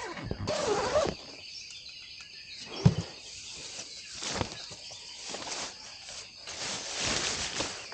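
Nylon tent fabric rustling and a knock as someone handles the tent's door flap while climbing out, over a steady high chorus of insects.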